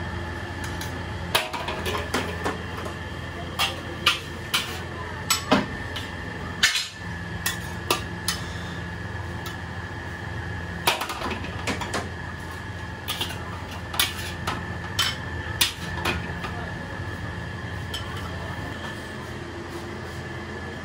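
A steel spatula clanking and scraping against a steel wok as fried rice is stir-fried, with irregular sharp metal strikes coming in runs. A steady low hum runs underneath.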